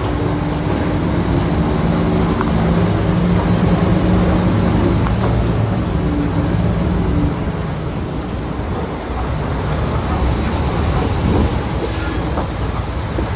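Heavy diesel earthmoving machinery working under load: a deep, continuous engine note over a dense mechanical rumble. The engine note eases off about two-thirds of the way through, then picks up again.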